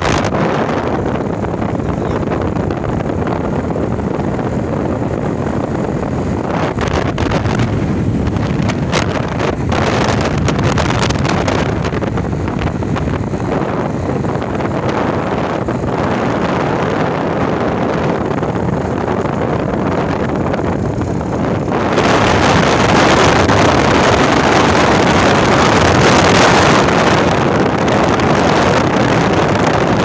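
Steady rushing wind noise buffeting the microphone, growing louder and hissier about twenty-two seconds in.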